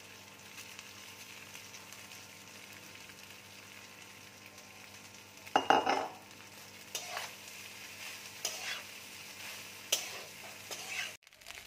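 Boiled rice frying in hot oil and ghee in a coated kadai, with a faint steady sizzle, then stirred with a spatula: about five scraping strokes from about halfway through, the first the loudest.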